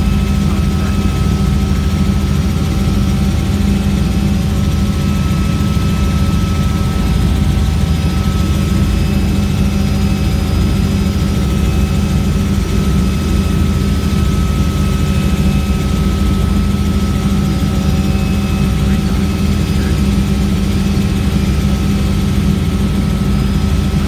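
Helicopter engine and rotor heard on board in flight: a loud, steady drone with a low hum and a thin steady whine above it.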